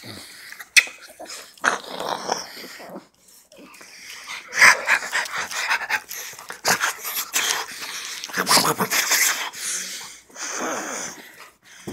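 Dogs snuffling and breathing hard right at the microphone, in irregular bursts, with rubbing and bumping as their fur brushes against it.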